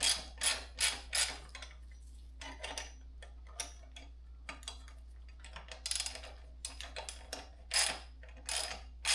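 Irregular metallic clicks and ticks, some in quick runs, as the nut on a homemade headset press (a long bolt with washers) is turned to draw a headset cup into a steel bicycle head tube.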